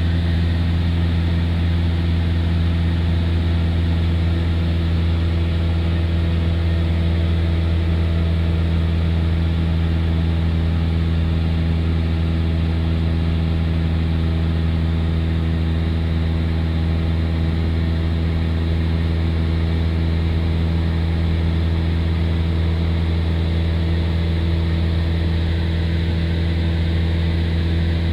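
Steady drone of a light propeller airplane's engine and propeller in cruise, heard inside the cabin: a strong low hum with several even tones above it that do not change.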